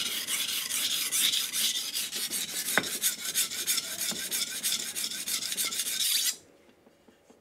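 Steel kitchen knife blade, a Mac, scraped in quick, even back-and-forth strokes across a coarse King G-45 220-grit whetstone, grinding the edge to raise a burr. The strokes stop abruptly about six seconds in.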